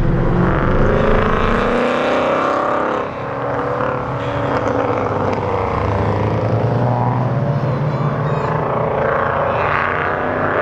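Car engines running at track pace, their pitch rising and falling as the drivers accelerate and lift, with a brief dip in level about three seconds in.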